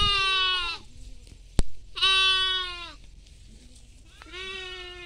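Young livestock bleating: three high-pitched bleats about two seconds apart, each under a second long and dipping slightly in pitch at the end. A single sharp click comes between the first two.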